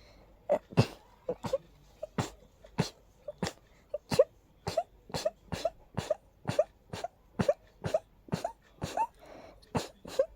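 A rapid, unbroken run of short, sharp sneezes from one person, a little over two a second, in an allergy sneezing fit.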